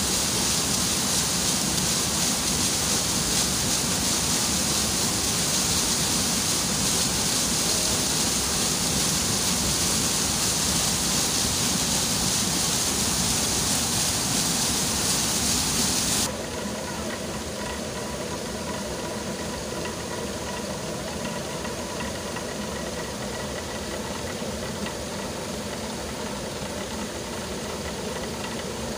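Water rushing down a narrow stone channel with a loud, steady hiss. About sixteen seconds in it cuts suddenly to a quieter steady hum with several faint level tones: a water-powered flour mill running, its millstone spinning and grinding grain.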